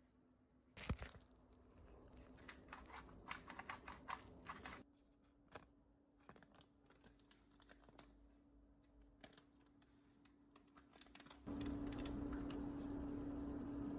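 Faint, irregular light clicking and tapping of kitchen utensils, thickest in the first few seconds. About three-quarters of the way through, a louder steady hum with a rushing noise switches on.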